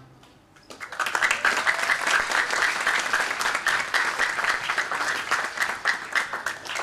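Audience applause breaking out about a second in after the final chord, a dense clapping that begins to thin out near the end.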